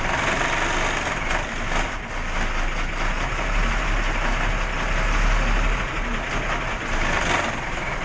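Bus engine running at idle, heard from inside the cab: a steady low rumble that swells a little in the middle.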